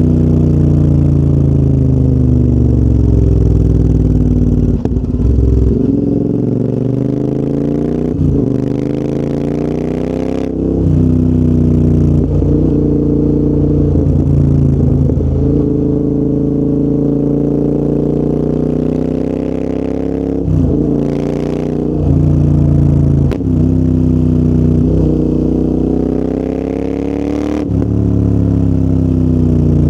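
Royal Enfield Interceptor 650's parallel-twin engine breathing through a full TEC exhaust system while riding: the engine note rises and falls repeatedly, broken by about six short interruptions as gears change.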